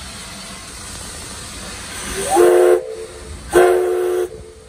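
Steam locomotive whistle sounding two short blasts about a second apart, the first sliding up in pitch as it opens, over a steady hiss of escaping steam. Two short blasts is the standard signal that the engine is releasing brakes and about to proceed.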